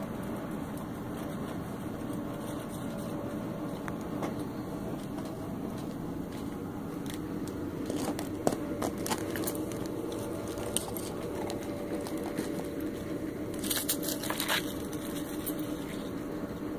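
Crusty snow crunching and crackling under a small dog's paws and snout as it noses and digs, in scattered bursts that are loudest about eight seconds in and again around fourteen seconds in, over a steady low mechanical hum.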